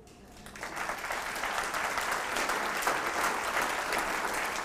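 Audience applauding, swelling over the first second and then holding steady.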